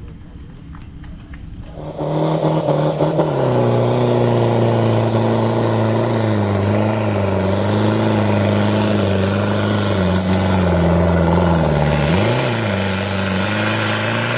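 Competition off-road 4x4's diesel engine working hard under load, its exhaust pouring black smoke. It comes in loud about two seconds in as a steady drone, with a brief rev up and back down near the end.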